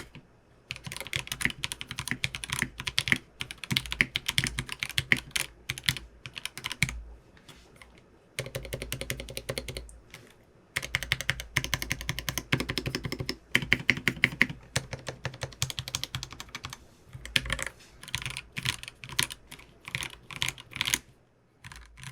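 Mechanical keyboard typing test: lubed ThicThock Marshmallow linear switches (JWK-made) under Olivia PBT keycaps in a Frog TKL, giving a quick run of low-pitched, fairly quiet bottom-out clacks with a softer pop on the upstroke. The typing comes in fast runs broken by short pauses, with a lull about eight seconds in.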